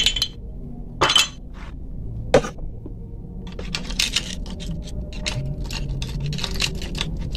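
A screwdriver clinking and scraping against the metal of a small motorcycle engine's cylinder head: a few separate sharp clinks, then from about halfway a quick run of small taps.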